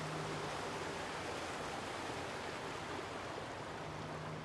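Steady rushing noise, with a low steady hum that fades out about half a second in and returns near the end.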